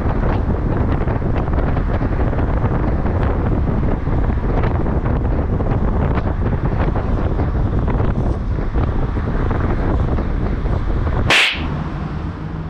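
Wind buffeting the microphone, mixed with road noise, from a car in motion: a loud, steady rushing. About eleven seconds in it breaks off with a short sharp hiss, and a quieter, steadier hum follows.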